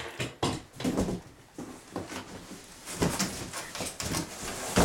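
Cardboard boxes and packaging being handled and shifted: irregular rustling, scraping and light knocks.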